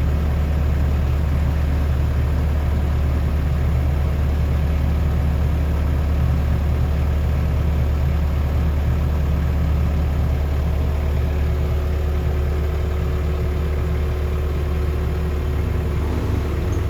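Diesel engine of a Komatsu PC128US-8 excavator running steadily at idle, a low, even hum.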